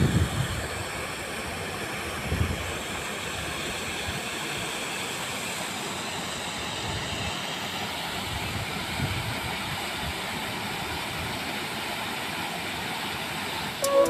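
Steady rushing of a waterfall whose thin streams fall into a rock pool, with a brief low bump about two seconds in.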